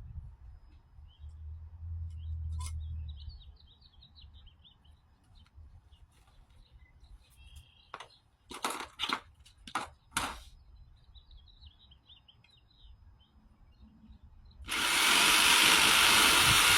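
Birds chirping faintly, with a few sharp knocks about halfway through. Near the end a loud, steady hissing noise cuts in suddenly.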